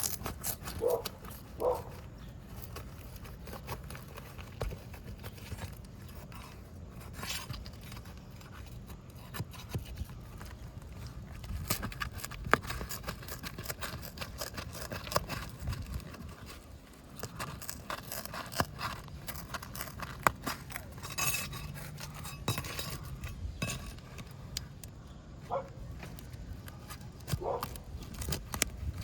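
Roofing pry bar and roofing snake working under shingles: scattered metal scrapes, taps and clicks against the shingles and nails as the nails are worked loose.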